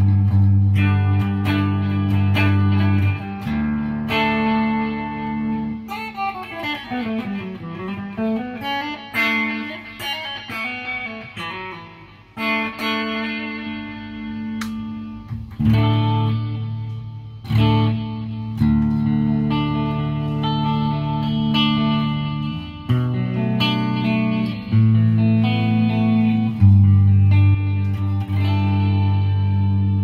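Electric guitar, a Mayones Hydra Elite, played through the clean channel of a PRS MT15 tube amp with 5881 power tubes. Ringing chords change every second or two, and the pitch swoops down and back up about seven to nine seconds in.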